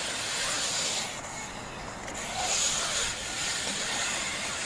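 BMX bike tyres rolling on skatepark concrete, a steady rushing hiss that drops back about a second in and swells again a little past the middle.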